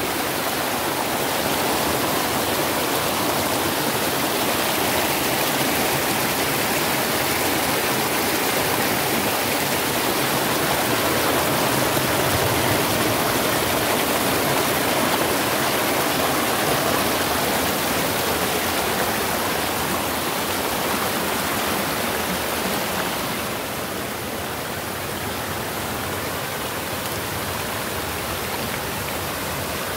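Muddy floodwater of a rain-swollen creek rushing and cascading over rocks, a steady loud din of water. It gets a little quieter about three-quarters of the way through.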